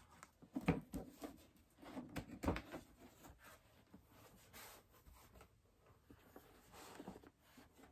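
Cardboard gift box being handled and its lid opened: a few soft knocks and taps in the first three seconds, then quiet rubbing and rustling of cardboard and a fabric dust bag.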